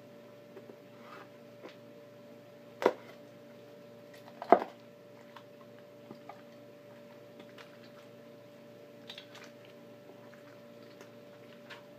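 Raw chicken being pulled and twisted apart by hand, with small scattered ticks. Two sharp knocks, about three and four and a half seconds in, are the loudest sounds, over a faint steady hum.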